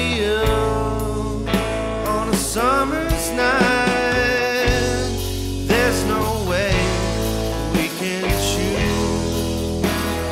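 Background rock music with a steady bass line, regular drum hits and bending, wavering lead notes.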